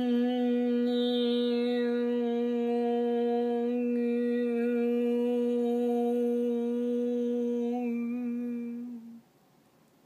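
A woman humming one long steady note with her lips closed, as a healing tone. It is held for about nine seconds and then stops.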